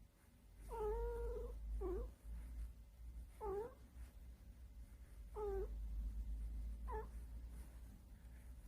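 A domestic cat making short, rising 'eung' murmur-calls of contentment while being stroked: five of them, the first the longest, over a low steady rumble.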